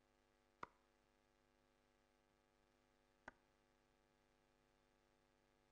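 Two steel-tip darts thudding into a Unicorn Eclipse HD2 bristle dartboard, sharp single impacts about two and a half seconds apart, the first under a second in, over a faint steady hum.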